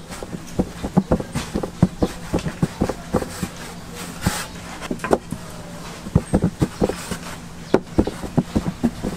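Quick, irregular series of short knocks and taps, about three or four a second, over a steady low hum.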